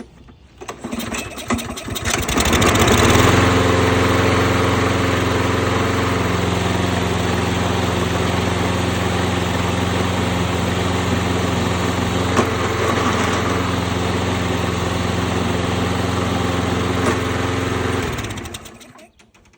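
Toro Recycler push mower's single-cylinder engine pull-started, catching about two to three seconds in and running at a steady speed with no surging, the sign that the carburetor cleaning cured the surge. It shuts off and winds down near the end.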